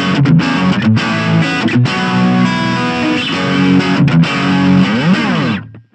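Electric guitar played through a Blackstar Fly 3 mini amp on its overdrive channel: distorted chords and riffs, with a note bent up and back down near the end before the playing stops.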